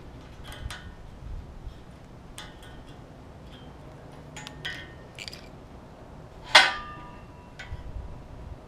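Light metallic clicks and clinks of a screwdriver prying the gaskets off the flanges of a steel exhaust midpipe, with one louder ringing clank about six and a half seconds in.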